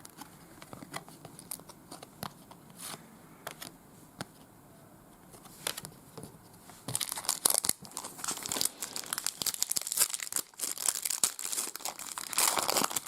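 A trading card pack's wrapper crinkling as it is handled and torn open. Light, scattered clicks of card handling come first, and the crinkling grows dense and louder about seven seconds in.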